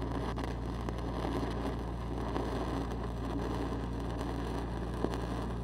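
Stick-welding arc crackling steadily as a 5/32 E8010 rod burns downhill on steel pipe, with one sharper pop near the end. Under it runs the steady drone of the Lincoln SAE 300 engine-driven welding machine.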